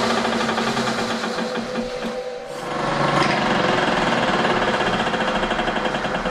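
Bridgeport milling machine running with a fast, rhythmic knocking from its head. The knock is getting worse, and the owner suspects the motor pulley rocking on its shaft, held by only two grub screws in a worn, ovaled cast-aluminium bore.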